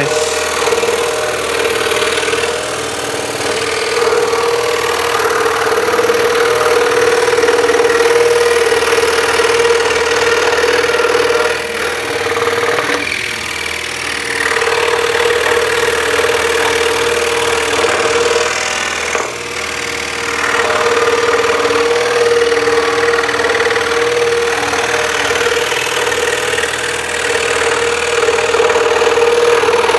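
Axminster Trade scroll saw running, its reciprocating blade cutting through a thick wooden block. It gives a steady buzzing hum that eases briefly twice as the cut goes on.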